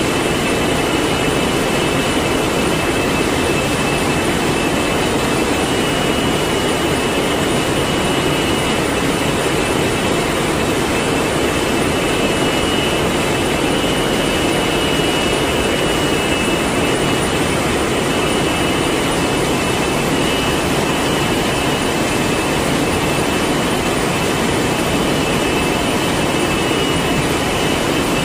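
Steady, loud machine noise: an even rushing hum with a thin high whine, without breaks or separate knocks.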